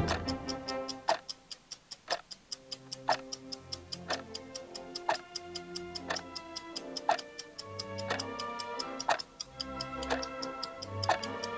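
Clock ticking sound effect for a countdown timer: a louder tick about once a second, with lighter, quicker ticks about four times a second in between, over instrumental music with held notes.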